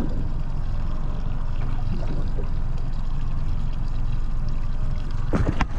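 Water lapping and sloshing against the hull of a small boat drifting at rest, with a couple of sharp knocks near the end.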